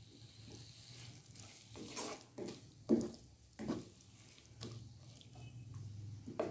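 Black slotted spatula stirring and scraping shredded vegetables in masala around a nonstick pan, in a run of short scrapes and knocks roughly a second apart, the loudest about three seconds in. The wet vegetables sizzle faintly underneath.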